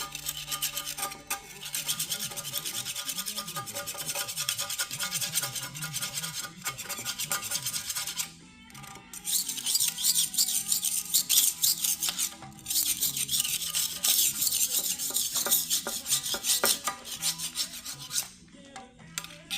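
Rapid hand scraping and rubbing strokes on metal as a dozer steering cover's sealing surface is cleaned of old gasket material before RTV is applied. The strokes stop briefly about eight seconds in and again near the end.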